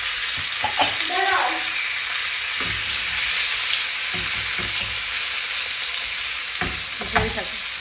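Potato wedges and tomato slices sizzling in hot oil in a non-stick frying pan, a steady high hiss, while a spatula stirs them, scraping and knocking against the pan several times.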